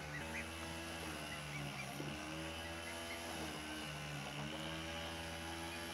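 A small petrol engine on a grass-cutting machine running steadily, its pitch rising and falling slowly as it works the grass. A few short, high peeps from goslings are heard over it.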